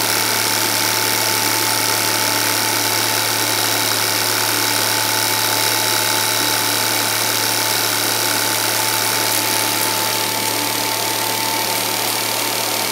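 Home-movie film projector running: a steady motor hum and whirr with a constant high whine and even hiss, slightly quieter near the end.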